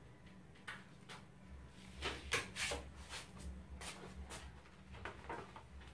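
Handling noise of LED backlight strips and the plastic reflector sheet inside a TV being worked by hand: scattered rustles, taps and light knocks of plastic, the loudest about two and a half seconds in, over a steady low hum.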